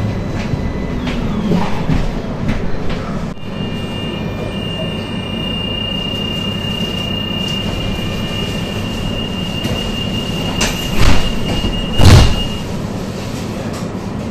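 AnsaldoBreda tram rolling slowly into a stop, heard from inside: a steady low rumble of the running gear. A few seconds in, a click starts a steady high-pitched whine from the variable-frequency traction drive, which stops near the end. Two loud knocks come just before the whine cuts off.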